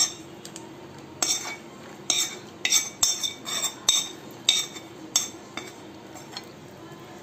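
A metal spoon scraping and knocking against a small steel frying pan, about ten ringing clinks, as fried cashews and raisins are tipped out of it into a bowl of payasam.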